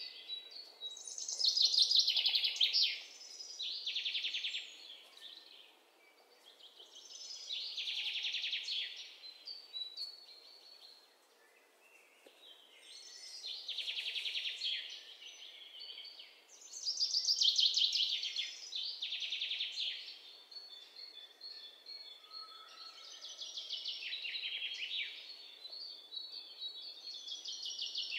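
Bird singing in repeated high, fast-trilled phrases of one to two seconds each, with pauses of a second or more between them.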